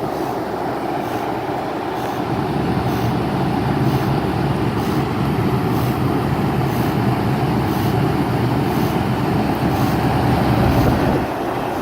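Goodman 3-ton package heat pump running steadily in cooling mode: a low, even hum from the compressor under the rushing air of the outdoor fan.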